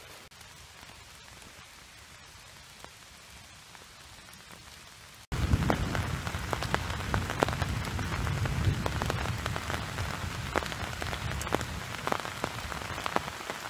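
Rain falling on a military poncho shelter overhead. About five seconds in it cuts abruptly from a faint steady hiss to loud rain drumming on the fabric, with many separate drop hits.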